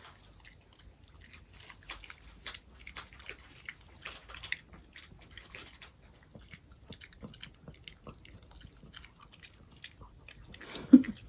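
A small Maltese dog chewing and crunching a treat: many quick, small crunching clicks, with one short louder sound near the end.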